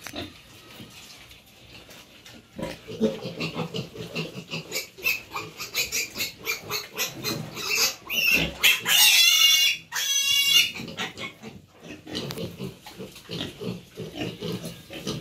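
Pigs grunting in quick short pulses, with a loud, high-pitched pig squeal lasting about two seconds near the middle, after which the grunting goes on.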